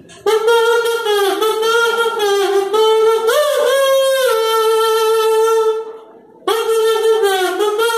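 Comb-and-paper kazoo, a comb with a sheet of plastic paper laid over it, hummed through to play a melody with a buzzing tone. Two long phrases with a short break about six seconds in.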